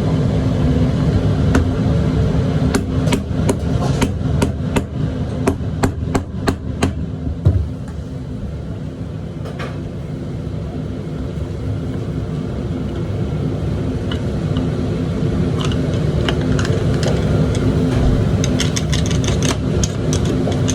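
Oyster shells being opened: sharp clicks and knocks of shell and blade, in quick clusters over the first several seconds and again near the end. A steady low rumble with a hum runs underneath.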